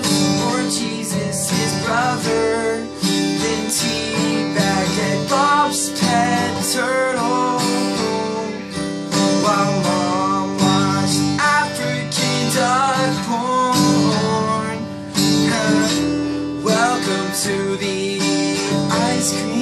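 Acoustic guitar strummed in a steady rhythm, with a man singing along over it.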